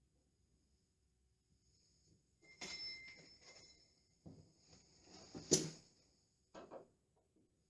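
Handling noises from papering: rustling and scraping, with a sharp knock about five and a half seconds in and a shorter one a second later.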